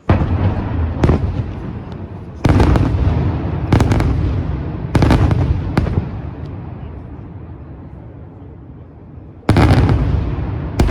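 Daytime fireworks display by Senatore Fireworks: heavy aerial shells bursting with loud booms, each trailing a rolling echo. About six bangs come in the first six seconds, then a lull of about three seconds, then two more near the end.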